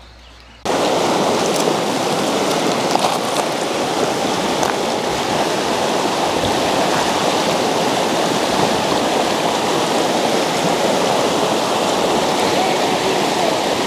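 Fast-flowing mountain creek rushing over rocky riffles: a steady, dense wash of water noise that cuts in suddenly less than a second in.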